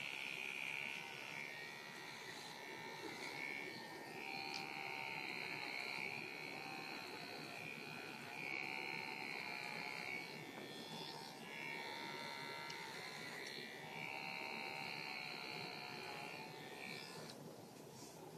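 Electric animal hair clippers running against a dog's foreleg, shaving the site for an IV catheter. A steady high buzz that grows louder and softer as the blade is pressed and passed over the fur, then stops near the end.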